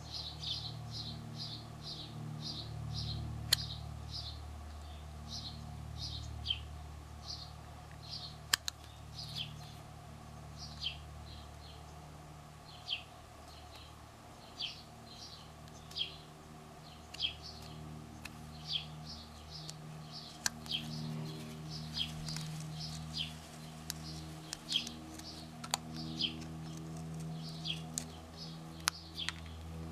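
Utility knife blade shaving small cuts from a carved wooden lure body: short, crisp scraping cuts at about one a second, with a few sharper clicks, over a low steady hum.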